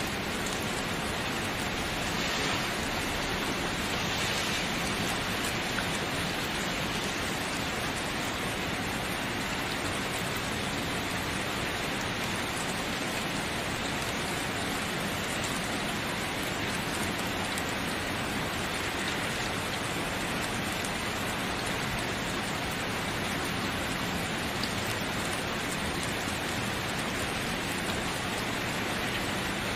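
Steady, continuous rainfall, an even dense patter of rain on surfaces.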